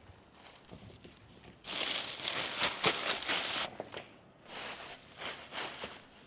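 Packaging being crinkled and handled: a loud crackling rustle for about two seconds, then a few shorter rustles.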